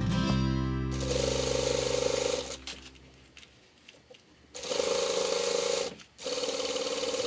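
Flat-bed industrial sewing machine stitching fabric in short runs. It runs for about a second and a half, stops for nearly two seconds while the fabric is turned, then runs again with a brief pause near the end. Soft background music plays under it.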